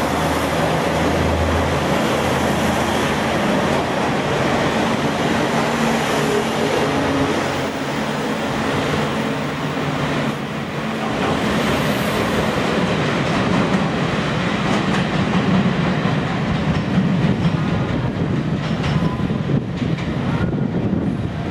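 KiHa 47 diesel railcar pulling out of a station: its diesel engine runs with a low hum under the steady rumble of the train, and near the end the wheels clatter over rail joints and points as it moves away.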